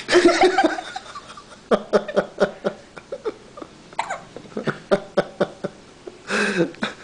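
People laughing in quick short bursts, several laughs a second, with a louder burst of laughter right at the start.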